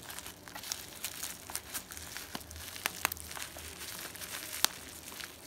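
Crinkly black plastic packaging wrap being handled, pulled and cut open with scissors: irregular crackling and crinkling, with one sharp snap about four and a half seconds in.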